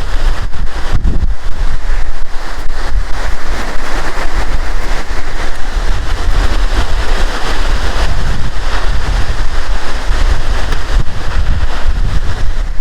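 Multnomah Falls' waterfall crashing down, a loud steady roar, with gusts of wind and spray from the falls buffeting the microphone in low rumbling thumps.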